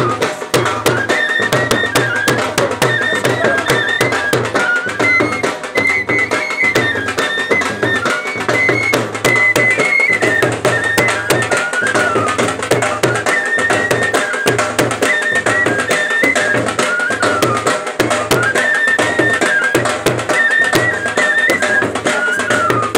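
Pahari folk dance music: a large double-headed drum beats a steady, fast rhythm under a high melody that steps up and down.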